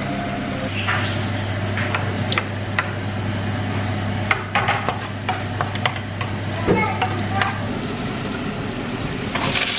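Stir-frying in a pan: a metal utensil clinks and scrapes against the pan many times over a steady sizzle, with a low hum under it, and a louder hiss of sizzling rises near the end.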